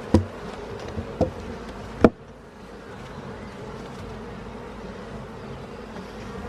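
Honeybees buzzing steadily around an open hive, with a few short knocks, the sharpest about two seconds in.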